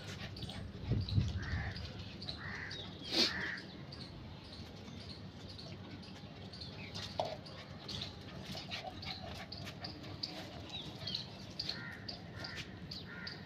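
Outdoor birdsong: small birds chirping over and over, with crows cawing a few times about one to three seconds in and again near the end. A low bump about a second in and a short, louder sharp sound about three seconds in stand out above the birds.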